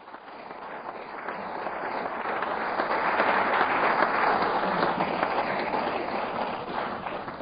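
Audience applauding, a dense patter of many hands clapping that swells over the first few seconds and dies away near the end.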